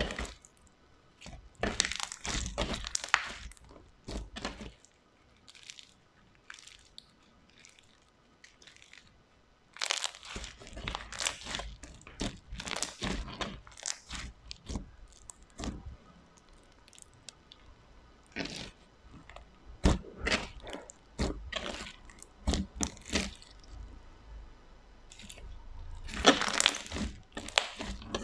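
Slime being squeezed, stretched and poked by hand, making irregular clusters of quick clicks and crackles with quieter gaps between.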